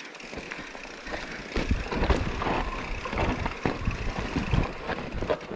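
Mountain bike riding over rough trail: tyre and ground noise with irregular knocks, rattles and low rumble, which grow busier and louder about a second and a half in.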